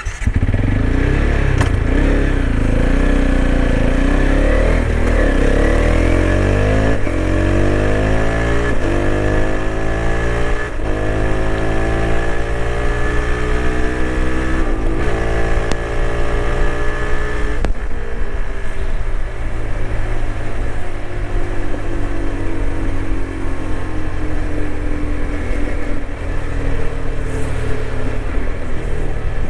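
TVS Apache RTX 300 motorcycle's single-cylinder engine accelerating hard. Its pitch climbs and is cut by several quick gear shifts through the first half, then it holds a steady highway cruise with the pitch slowly easing down.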